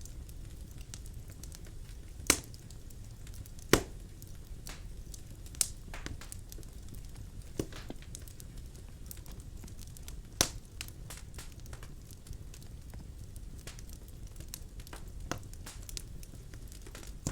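Birch logs burning in a fireplace: a steady low rumble of flame with irregular sharp wood pops and crackles, the loudest few a couple of seconds apart in the first half.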